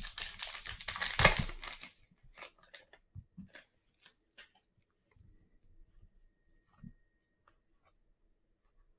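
A foil trading-card pack being torn open, crinkling loudly for about two seconds, then a string of faint clicks and taps as the cards inside are handled and slid apart.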